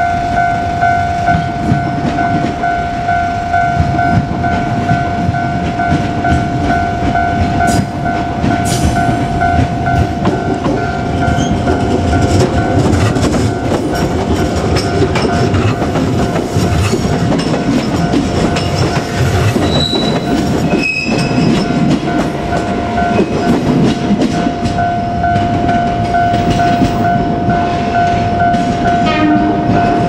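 Japanese level-crossing warning bell ringing steadily while a JR Kyushu 817-series electric train runs past with heavy wheel rumble and clatter over the rail joints. The bell is partly drowned by the train in the middle. Near the end, once the train has passed, it comes through clearly again. A couple of brief high squeals come about two-thirds of the way through.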